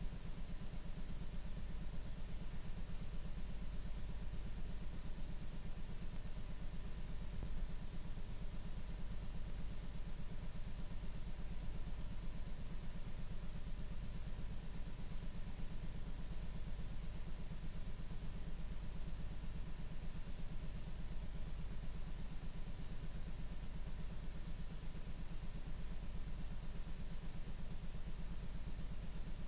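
Steady electrical buzzing hum with hiss, unchanging throughout, with a thin steady tone above it. This is noise on the audio track of a tape transfer, with no program sound over the title cards.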